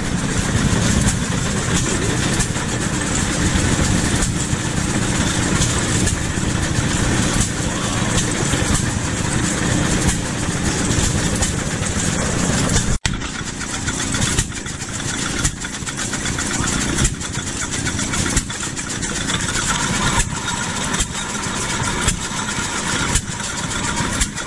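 Old stationary gas engines running at an engine display, a steady mechanical clatter. After a break about halfway through, sharp regular beats come roughly once a second.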